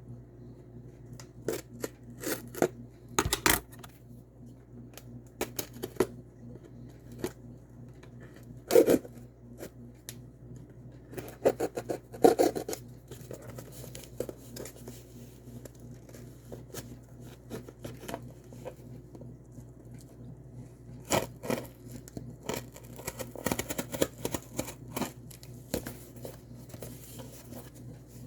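A mail package being cut and torn open by hand: scattered short rustles, scrapes and clicks of packaging, with a few louder knocks as it is handled, over a faint steady low hum.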